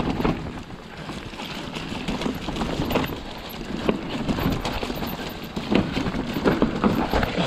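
Electric mountain bike riding over a rough, rocky trail: tyres crunching and the bike rattling and knocking at irregular moments, with wind noise on the action camera's microphone.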